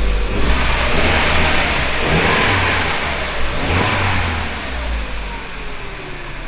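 Mini Cooper R56's four-cylinder engine running warm and being revved a few times, its pitch rising and falling, then dropping lower near the end.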